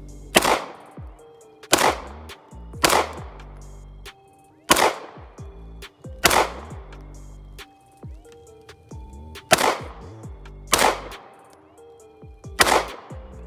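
Eight pistol shots fired at an uneven pace, one every one to two seconds. Each is a sharp crack with a short ringing tail, over background music.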